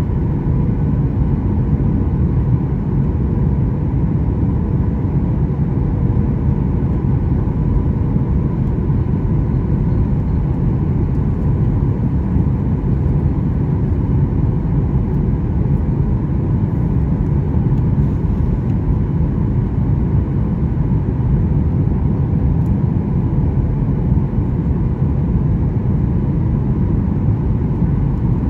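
Steady cabin noise of a Boeing 737-800 in flight, heard from a window seat over the wing: the low drone of its CFM56 turbofan engines and the rush of airflow. A faint steady hum runs through it.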